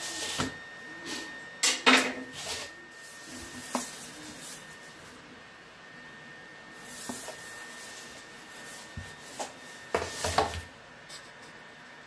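Scattered knocks, clicks and scrapes as a knife and hands work on a metal pizza pan while scoring stromboli dough, with the loudest clatters about two seconds in and again near ten seconds.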